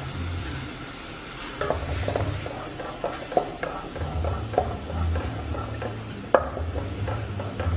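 Wooden spatula stirring coconut milk in a stainless steel stockpot, with irregular knocks and scrapes of the wood against the pot, the sharpest about six seconds in. A low hum runs underneath.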